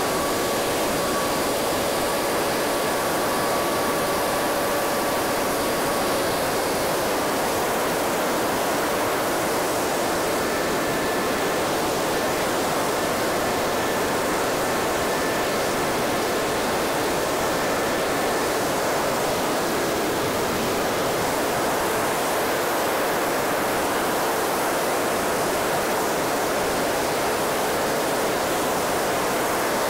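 Steady rush of wind over the wing-mounted camera of a BRM Citius ultralight in cruising flight. A faint, steady engine tone shows through it for the first several seconds.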